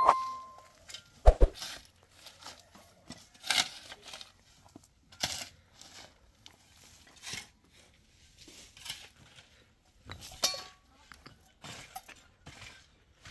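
A bell-like tone dying away in the first second, then scattered light clicks and clinks, roughly one every second or so.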